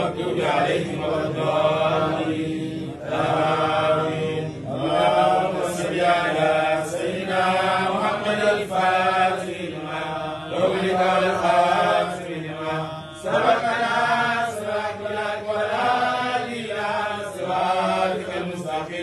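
Men's voices chanting Sufi dhikr together, a short devotional phrase repeated over and over with a rising and falling melody.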